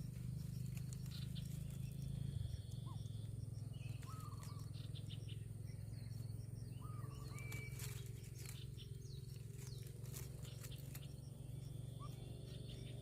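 A few faint, short bird chirps over a steady low hum and outdoor ambience.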